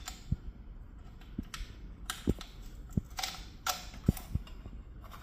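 A screw being turned down by hand to fasten the miter saw's support extension. Irregular small clicks and taps of metal parts are heard, with a few brief scrapes.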